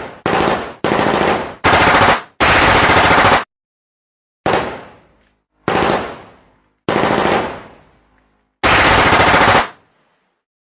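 Automatic gunfire in bursts of varying length: several quick bursts in the first few seconds, including a longer one of about a second, then three short bursts each trailing off in an echo, and another long burst near the end.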